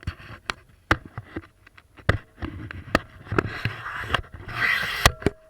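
Snowboard scraping over snow in bursts of scratchy hiss, with irregular sharp knocks and clicks.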